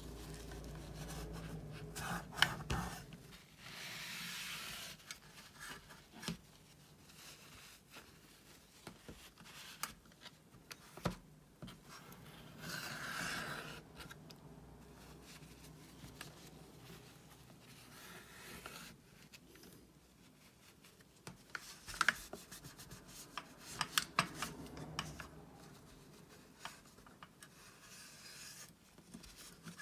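A tissue rubbing and wiping over the enamelled metal of a vintage Reeves student's watercolour tin, in soft swishing strokes, with scattered light clicks and taps as the tin is handled.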